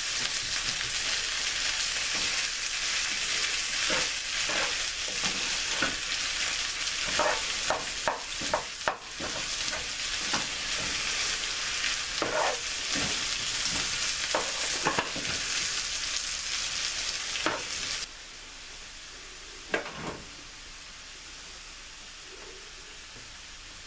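Home-fried potatoes and onions sizzling in hot oil in a frying pan, with a spatula scraping and knocking now and then as they are turned. About 18 seconds in, the sizzle drops off sharply to a quieter hiss.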